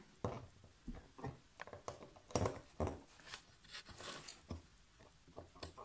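Scattered light clicks and knocks from hands working a cardboard smoke-extractor box and its power lead, with the extractor fan switched off. About ten irregular ticks, the loudest about two and a half seconds in.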